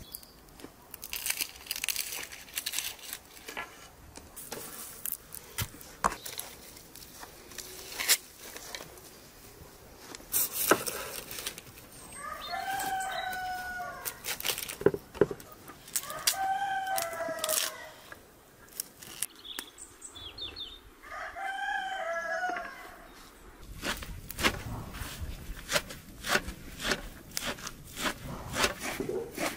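A rooster crows three times, each crow about a second and a half long, over the scattered clicks and taps of food being cut by hand. Near the end, a knife chops fresh greens over a metal tray in quick taps.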